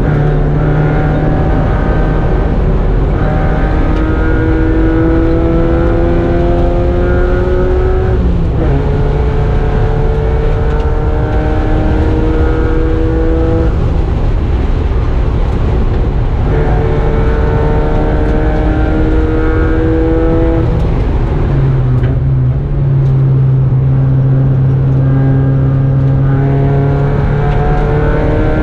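Mazda Miata race car's four-cylinder engine heard from inside the stripped cabin, accelerating hard with its pitch climbing. It shifts up about eight seconds in, lifts off around fourteen seconds, then pulls again. A steadier, lower drone follows before the engine climbs once more near the end.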